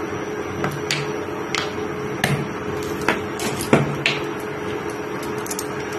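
Mustard oil being poured into a hot non-stick kadhai, over a steady hum, with several short, sharp taps and clicks in the first few seconds.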